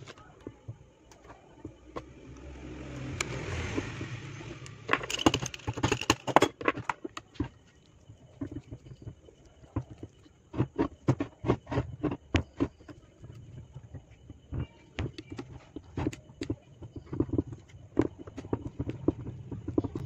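Sharp, irregular metal clicks and taps as the screws of a small power transformer's steel core frame are fitted and turned with a screwdriver, with a dense flurry of them about five seconds in and scattered ones later. Over the first few seconds a low rumble swells and fades.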